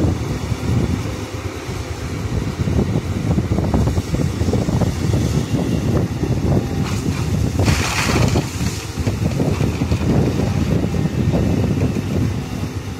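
Wind buffeting the microphone over the running diesel engine of a Volvo EC350DL excavator, with a brief brighter rush about eight seconds in. The sound fades out near the end.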